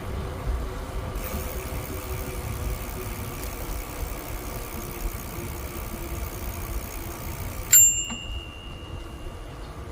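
Bicycle bell rung once near the end: a single sharp ding that rings on for about two seconds, over a steady rumble of wind and riding noise.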